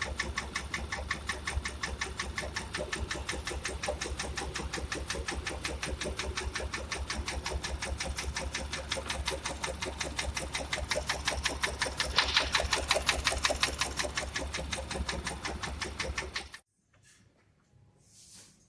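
Porsche Macan engine running with a rapid, even knocking, several knocks a second, growing a little louder past the middle, then cutting off suddenly about two seconds before the end. The engine is misfiring and knocking, with scored cylinder walls, and is heading for an overhaul.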